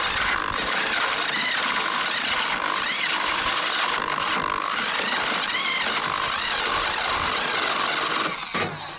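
Power drill boring a hole down through the timber top of a wall, running steadily under load with its pitch rising and falling, then stopping about a second before the end.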